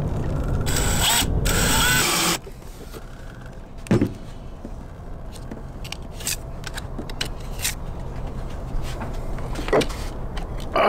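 Cordless drill driving screws into a plywood battery tray: two short bursts of whine, about one and two seconds in. A few light knocks and ticks follow as the wood and battery are handled, the sharpest around four seconds in and near the end.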